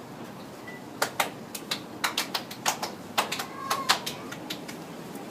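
A rapid, irregular series of sharp clicks and taps, about fifteen of them over three seconds, starting about a second in.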